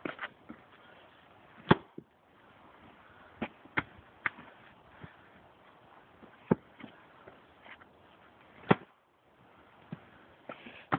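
Sharp blows of a wood-splitting tool striking a large log round, about half a dozen at uneven intervals, two of them much louder than the rest. The blows land in different spots and the round does not split.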